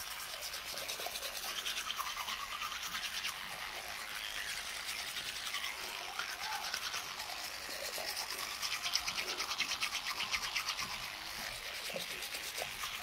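Colgate vibrating electric toothbrush buzzing against the teeth during brushing, its sound rising and falling with the brushing strokes.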